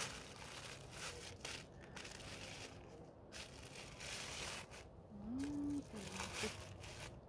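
Irregular rustling and crinkling, as of dry debris or wrappings being disturbed. A short pitched hum rises and levels off about five seconds in.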